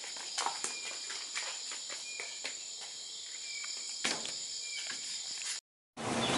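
Night chorus of crickets: a steady high-pitched trill with scattered light clicks over it. It cuts off suddenly about five and a half seconds in, and after a brief silence a steady vehicle rumble begins.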